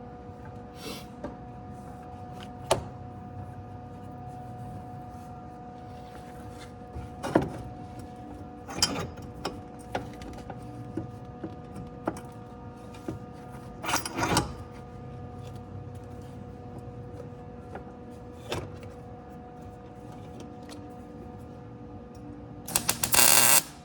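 A steady hum with scattered clicks and knocks of metal being handled. Near the end comes a loud, crackling burst of a welding arc, about a second long: a first tack weld.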